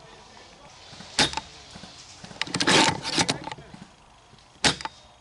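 Two sharp snaps about three and a half seconds apart, typical of an airsoft sniper rifle firing, with a cluster of clicks and rustling between them.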